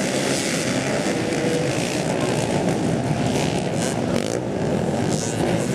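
A large field of dirt bikes running and revving together in a dense, continuous wash of engine noise, as a cross-country race pack sets off from the start.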